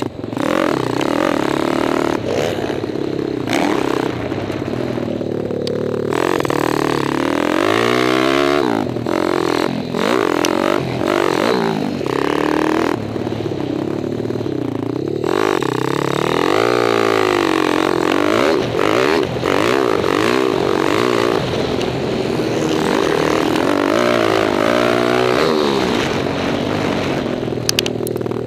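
Kawasaki KLX dirt bike's stroked single-cylinder four-stroke engine being ridden hard, revving up and dropping back again and again through the gears, heard on board.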